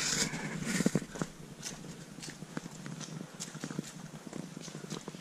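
Footsteps of a person walking on a dirt forest trail, irregular knocks and crunches of the feet, with a louder rustling burst in the first second.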